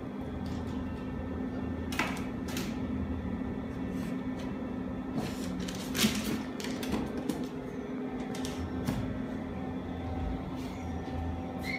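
Pets moving about on hard surfaces: scattered light clicks and knocks, the loudest about six seconds in, over a steady low hum.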